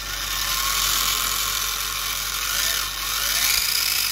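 Small electric motor of a scale-model tractor running its open spur-gear reduction and differential, a steady whir whose pitch slides up and down a few times.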